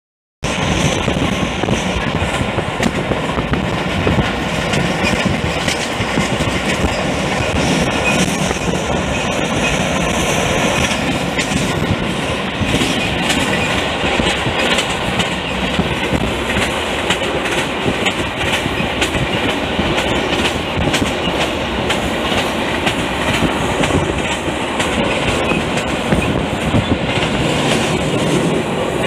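A train running at speed, heard from aboard: a steady rumble with the clickety-clack of wheels going over the rails.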